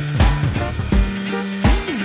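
Background music with a steady drum beat, about one hit every 0.7 seconds, over a bass line with gliding notes.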